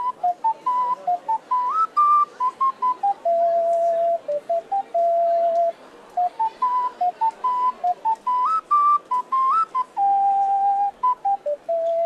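Ocarina playing a slow melody of single clear notes, some short and some held, with small upward slides into a few of the higher notes and a brief pause around the middle.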